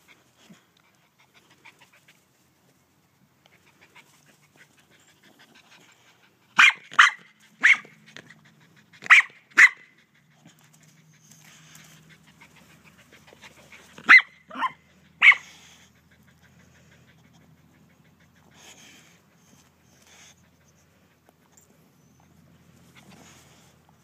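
Boxer dog giving eight short sharp barks in three quick runs, between about seven and fifteen seconds in, with quieter snuffling at the grass in between.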